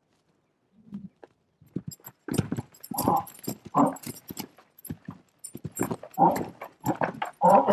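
Young stallion bucking under his first saddle: hooves thud on the dirt in quick, irregular beats with the saddle rattling, and the horse gives hard grunting breaths. It starts about a second in and gets busier.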